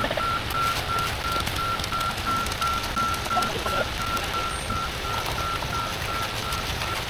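A heavy vehicle's reversing alarm beeping rapidly and evenly on one pitch, over the low running of its engine.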